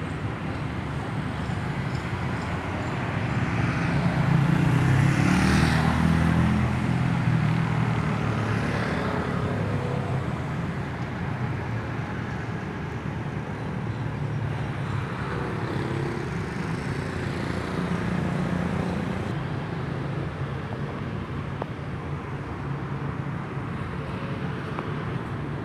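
Road traffic with motorcycles and cars driving past over a steady engine hum. The loudest vehicle passes about five seconds in, its pitch falling as it goes by, and a few quieter ones pass later.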